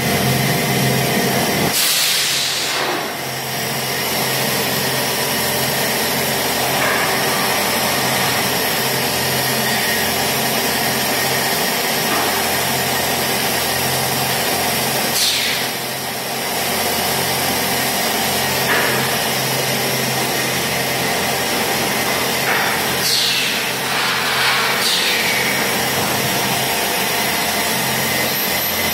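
Stainless steel pipe making machine running: a steady, loud mechanical hum and hiss, with a few brief high sweeps that fall in pitch.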